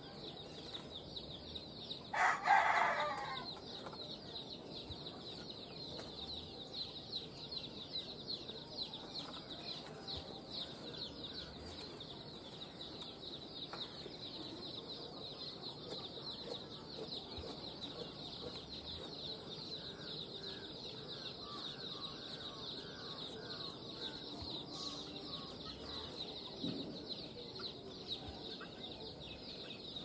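A rooster crows once, about two seconds in. Under it runs a faint, steady high-pitched buzz, with scattered faint bird calls.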